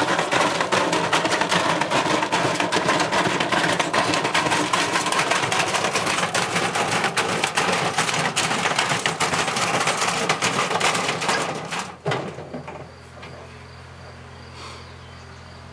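Loud, rapid, continuous mechanical clattering, a dense run of knocks, that stops abruptly about twelve seconds in. It leaves a faint steady low hum.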